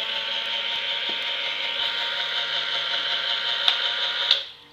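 Homemade turbojet engine built from an HT18 turbocharger, running steadily with a loud hiss and a whine held at one pitch. Two sharp ticks come near the end, then the sound cuts off abruptly.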